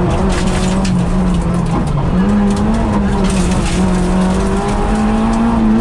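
Peugeot 106 rally car's engine pulling hard at high revs, heard from inside the cabin; about two seconds in its pitch sags and jumps back up at a gear change. Tyre and road noise runs underneath.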